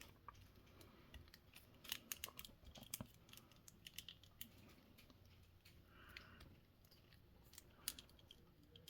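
Faint, scattered small clicks and rustles of a plastic action figure and its parts being handled.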